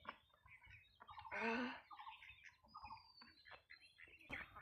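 Birds chirping faintly in short calls, with one louder pitched call about a second and a half in.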